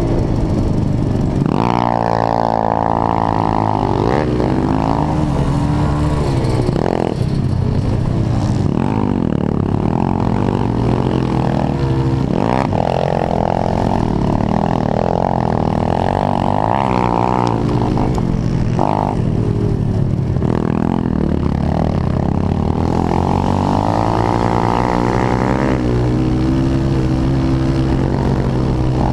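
Pit bike engine racing hard, its pitch climbing under throttle and dropping again every few seconds as the rider shifts and backs off for turns.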